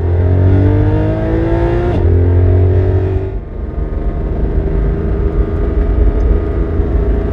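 Porsche 718 Cayman GTS 4.0's naturally aspirated flat-six accelerating hard, its pitch climbing, with a gear change about two seconds in. It pulls on briefly, then eases off at about three and a half seconds in and runs on more evenly at lighter throttle.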